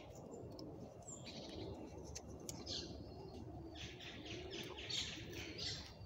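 Small birds chirping in the trees: a few quick clusters of high chirps, the busiest run about four to six seconds in, over a low steady background rumble.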